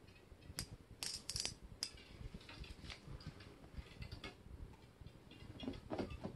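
Shimano 21 Ultegra C5000XG spinning reel's drag clicking as line is pulled off the spool against a 2 kg drag setting. The clicks come in uneven spurts, a burst about a second in, scattered ticks, then another burst near the end, rather than a steady run: the jerky, unsteady drag release that the owner finds abnormal.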